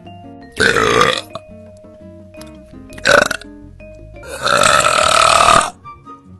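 A girl burping loudly three times over light background music. The first burp comes about half a second in, a short one follows around three seconds, and the last is a long, drawn-out burp of about a second and a half.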